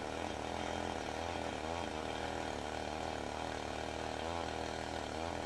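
A small engine running steadily, its pitch swinging up and down a couple of times.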